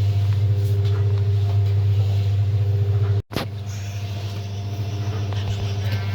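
Livestock feed mixer machine running with a steady low hum. It cuts out for a split second a little past the middle, then carries on slightly quieter.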